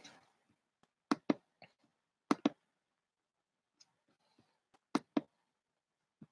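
Sharp clicks from working a computer, coming in three pairs a fraction of a second apart, with near silence between them.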